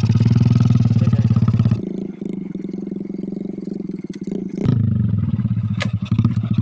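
Honda Supra underbone motorcycle's four-stroke single running at a steady idle through an aftermarket Akrapovic exhaust, a loud, deep, even note; the engine has a new carburettor and a light tune. About two seconds in the exhaust note drops to a thinner sound, and a little before five seconds it comes back loud.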